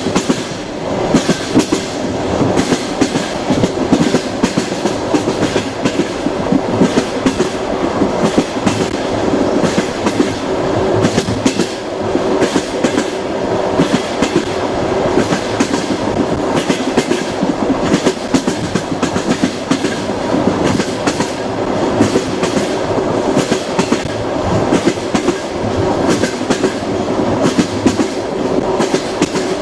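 Passenger train wheels clicking over rail joints: a steady clickety-clack over the rumble of the moving carriage, heard from inside the train.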